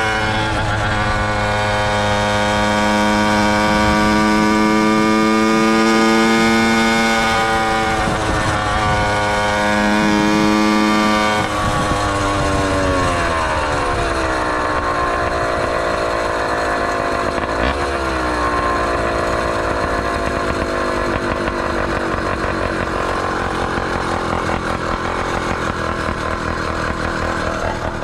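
Small engine of a motorized bike running at steady high revs while riding, with one brief dip in revs. About halfway through the revs fall away as the bike slows, and the engine runs on at low, pulsing revs.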